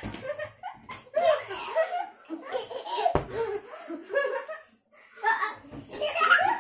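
Several people, adults and children, laughing and giggling together in short bursts, with a few words mixed in. There is a dull thump about three seconds in.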